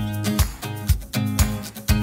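Background music: a strummed acoustic-guitar track with a steady beat of about two hits a second, kicking in abruptly right at the start.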